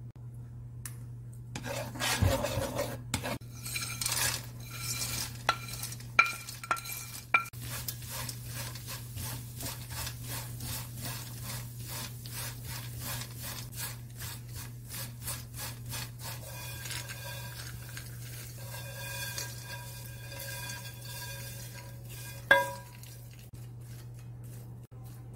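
Dried anchovies stir-fried in a honeycomb stainless-steel frying pan with a spatula: a rapid run of scraping and rattling strokes against the pan, broken by sharp knocks that make the metal ring, the loudest near the end. A steady low hum runs underneath.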